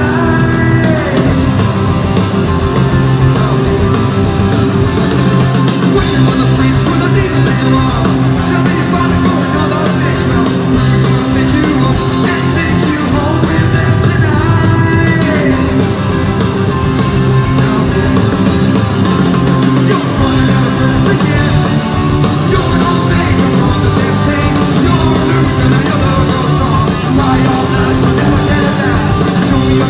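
Punk rock band playing live: distorted electric guitar, bass guitar and drums, with a singer shouting the vocals into the microphone.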